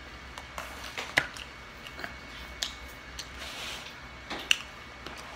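Close-up chewing: soft, irregular mouth clicks and small crunches, with two sharper clicks about a second in and near the end.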